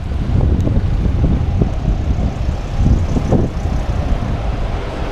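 Wind buffeting the microphone of a moving road bicycle, an uneven low rumble, with a hiss of road noise and a few small knocks from the ride.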